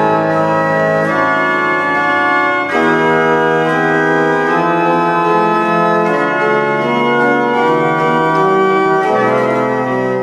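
Organ music: slow, sustained chords held and shifting every second or so.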